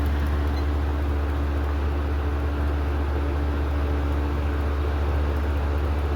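Lakewood Model 200 box fan with plastic blades running steadily on its medium speed: a constant low motor hum under the rush of moving air.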